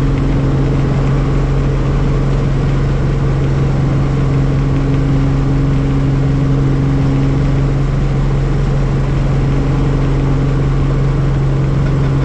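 Helicopter in flight: a steady, loud drone of engine and rotor with a strong low hum.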